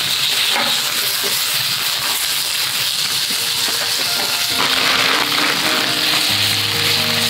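Offal frying in a hot iron pan with a steady sizzle as it is stirred with chopsticks. Background music comes in about halfway through.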